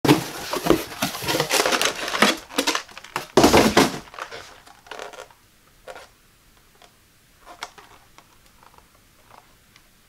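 A cardboard shipping box being opened by hand: close, dense rustling and scraping of cardboard for about four seconds, loudest near the end of that stretch. Then the handling goes quiet apart from a few light clicks as a plastic clamshell pack is held.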